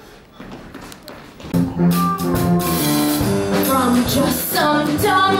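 Jazzy show-tune accompaniment with drum kit, starting up about a second and a half in after a few quiet taps.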